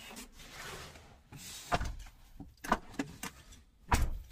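Knocks and clunks of a person climbing into a car's driver's seat, ending about four seconds in with a heavier thump, the loudest sound, of the car door shutting.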